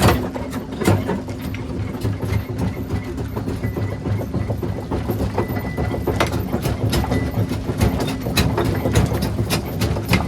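Heavy engine of a rock-crushing machine running steadily, with many sharp, irregular cracks and knocks of rock being broken.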